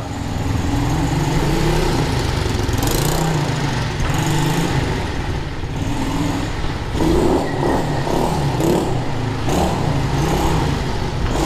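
Small single-cylinder SSR 110 pit bike engine running and being revved, busier and a little louder from about seven seconds in.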